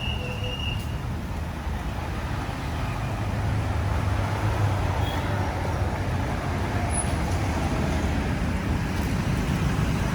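Street traffic: a steady low rumble of passing motor vehicles, with a short high-pitched tone right at the start.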